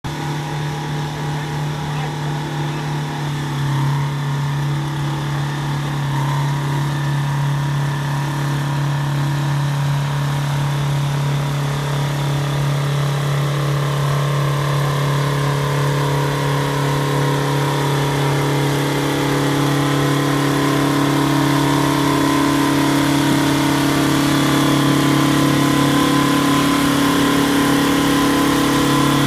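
Oliver 1950 tractor's Detroit Diesel two-stroke engine running at a steady speed, growing gradually louder as the tractor draws near.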